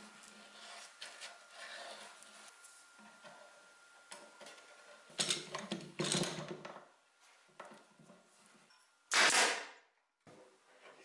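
Workshop handling sounds: a glue brush scratching faintly along a wooden edge, then knocks and scrapes as a thin wooden strip is laid on and a screw clamp is fitted and tightened. There is a short, loud scrape about nine seconds in.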